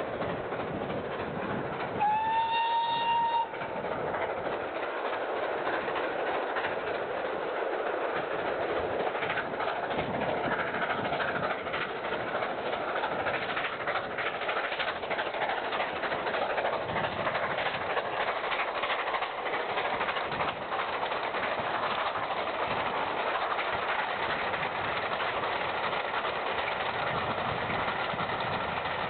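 GWR Castle class steam locomotive No. 7029 Clun Castle gives one short whistle blast, rising slightly in pitch, about two seconds in. It then runs past with its train, a steady rush of exhaust and wheel noise with a clickety-clack of wheels over rail joints.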